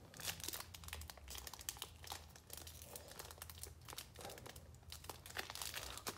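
Wrapper of a Donruss Optic football card pack crinkling as it is peeled open and handled, a quiet run of irregular crackles.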